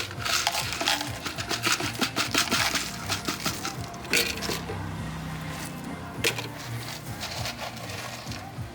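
Quick runs of metal clinks and taps from cooking utensils, dense over the first three seconds, with two sharper knocks about four and six seconds in, over steady background music.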